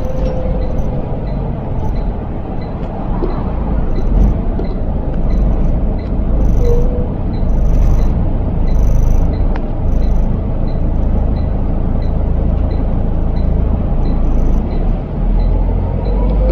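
Inside a Volvo B7L low-floor bus on the move: the rear-mounted six-cylinder diesel and drivetrain give a steady low rumble. A faint regular tick comes about three times every two seconds, and near the end a whine rises in pitch.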